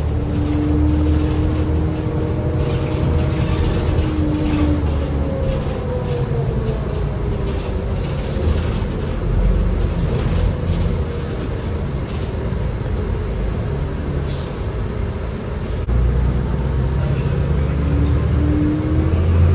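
Cabin sound of a 2005 New Flyer C40LF transit bus under way, with its Cummins Westport C Gas Plus natural-gas engine and Allison B400R transmission. It runs with a steady low rumble and a whine that falls away about five seconds in and rises again near the end.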